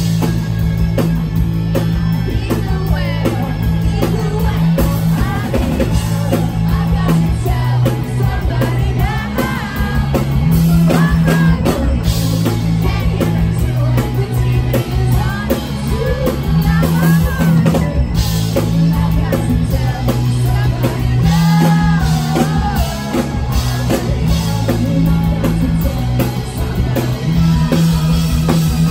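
Live rock band playing a song, with a sung lead vocal over drums and a loud electric bass line that changes note every second or two.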